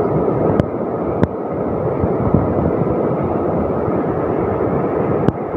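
Fast-flowing floodwater rushing down a street: a steady, dense rush with a few brief clicks.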